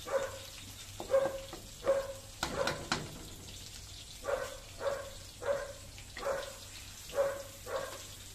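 A pet dog barking loudly and repeatedly, single barks about every half second to a second, with a pause of about a second near the middle. A brief cluster of sharp cracks sounds about two and a half seconds in.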